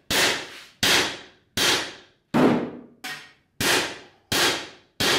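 Hammer blows on a steel safe: about eight sharp metallic strikes at a steady pace, roughly one every three-quarters of a second, each ringing briefly, one in the middle lighter than the rest.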